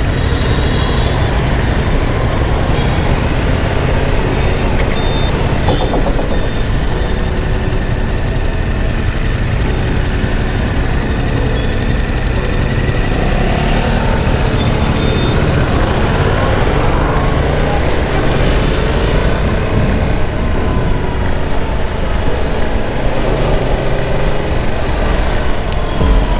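Yamaha YZF-R7's 689 cc parallel-twin engine running on the move, under a steady rush of wind on the microphone, the engine pitch sliding up and down a few times in the middle.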